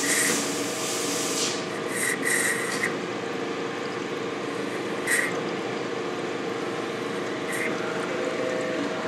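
CNC gang-tool lathe (1959 Hardinge, retrofitted) running with a steady hum and hiss while a grooving tool cuts an O-ring groove in a brass valve, with a few short high-pitched squeals from the cut at intervals.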